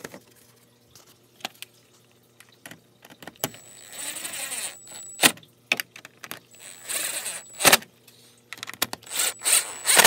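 Cordless drill/driver with a socket spinning down the plastic air box cover bolts in three short runs, each with a high motor whine, between sharp clicks and knocks of the tool and plastic cover.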